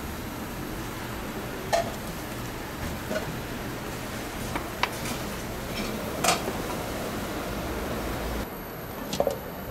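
Steady kitchen background noise with a handful of short, sharp knocks and clicks a second or two apart, as boiled pork meat and bone are handled on a stainless-steel tray. The background noise drops off suddenly near the end.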